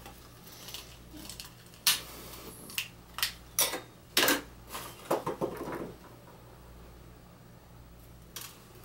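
A run of sharp clinks and knocks from small objects and tools handled on a cluttered laboratory bench, bunched in the middle of the stretch and then stopping, over a steady low hum.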